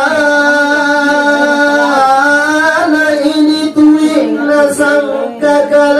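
A single voice chanting in long held notes that bend and waver in ornamented turns, with a short break about four seconds in.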